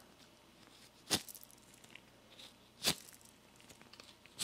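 Dry ball bearing from a Honda Accord starter motor spun by hand, with three short sharp sounds about a second and a half to two seconds apart over a faint background noise. The noise means the grease inside is gone and the bearing will fail soon.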